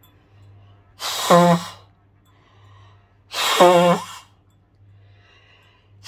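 A woman blowing her nose hard into a cloth handkerchief twice, each blow starting with a hiss of air and turning into a short buzzing honk. There are softer breaths in between.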